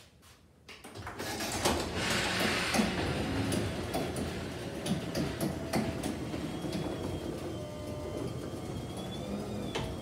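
Chamberlain garage door opener starting up about a second in and raising the garage door, the motor running under a steady rattle with frequent clacks and knocks from the door and track, and a faint whine near the end.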